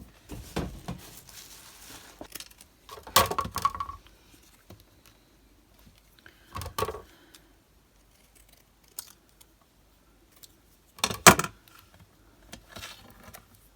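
Craft supplies handled on a desk: rustling with three short bursts of clicks and clatter, about three, seven and eleven seconds in, the last the loudest.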